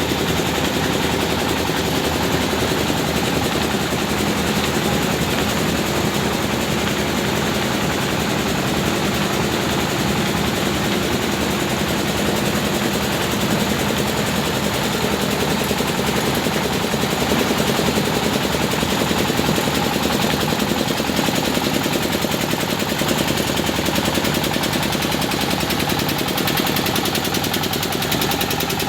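Engine-driven rice husking machine running steadily, a loud continuous mechanical clatter with a rapid, even pulsing as it hulls paddy.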